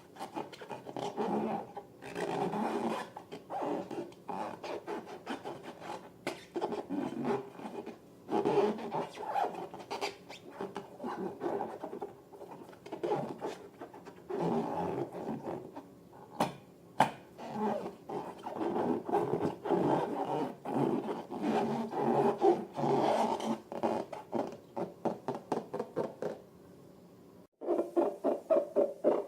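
Slime and rubber balloons being handled: irregular rubbing, squishing and squeaking. About 27 seconds in there is a brief pause, then a quicker run of regular pulses, about three a second.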